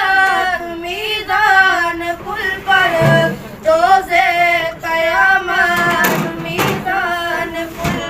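Islamic devotional singing (a naat): a voice holding drawn-out, wavering melodic phrases, with a few brief low thumps a little past the middle.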